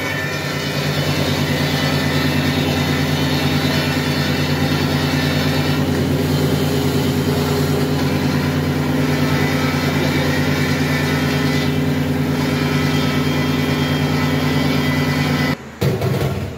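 Stainless-steel shrimp and crab grinder running steadily with its lid held down, its motor and bottom blade churning shrimp into a fine paste. A steady machine hum that stops abruptly near the end, followed by a few brief knocks.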